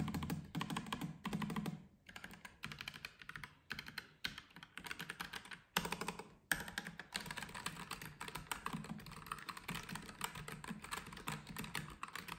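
Typing test on a Keychron K3 Pro low-profile mechanical keyboard with Gateron brown tactile switches and PBT double-shot keycaps: rapid key clicks, with a few short pauses in the first half, then steady fast typing.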